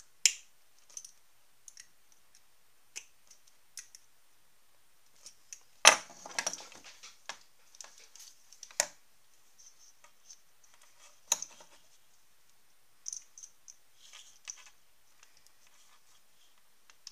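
Hand tools and wire being handled on a wooden workbench: scattered small clicks as crimping pliers squeeze connectors onto thin wires. There is a louder clattering knock about six seconds in, and a few smaller knocks later.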